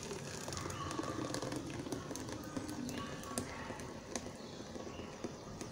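Thick corn cake batter pouring from a blender jar into an aluminium tube pan: a faint, soft pour with a few small clicks.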